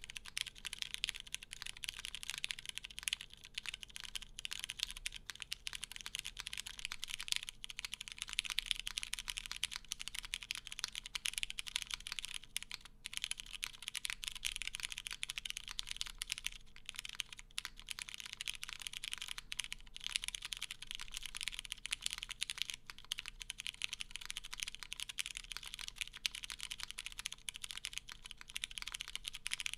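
Steady, fast typing on a Vella 60 Performance Edition mechanical keyboard fitted with lubed vintage Cherry MX Brown tactile switches, a full polycarbonate plate, an O-ring mount and GMK keycaps: a dense, continuous patter of keystrokes. The builder finds it a bit pingy and hollow, because the case has no internal weight.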